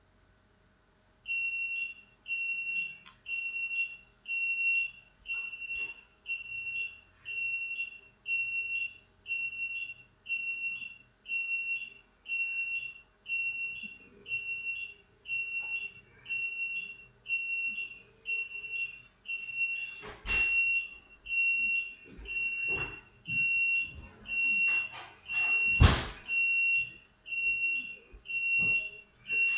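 An electronic beeper sounding a high, steady-pitched beep over and over at an even pace, about one and a half beeps a second, with a few sharp knocks in the second half, the loudest shortly before the end.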